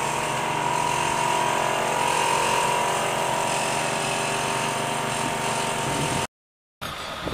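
An air compressor's motor running with a steady, even hum that breaks off abruptly about six seconds in.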